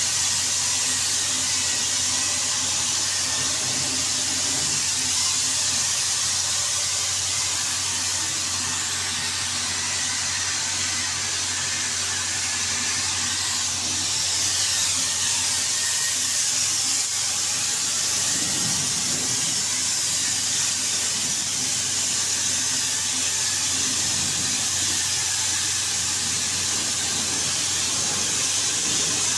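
Compressed-air paint spray gun hissing steadily as it sprays paint onto a door, with a low steady hum underneath.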